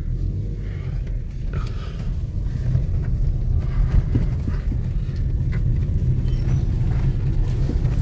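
Toyota car heard from inside the cabin while driving off slowly: a steady low engine and road rumble with a few faint knocks.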